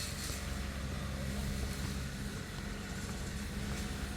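Grass-cutting machine's engine running steadily, a constant low hum with a hiss of noise over it.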